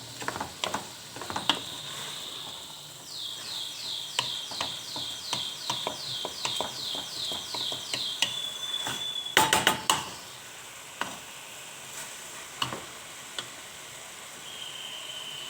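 Seafood paella base sizzling in the pan while a spoon stirs it, scraping and knocking against the pan. In the middle comes a run of about a dozen quick, high falling chirps, and a short cluster of louder knocks follows shortly after.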